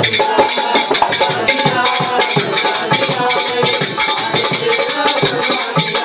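Kirtan music: a dholak drum and small metal hand cymbals keep a fast, steady beat over a harmonium's held chords, with a man singing.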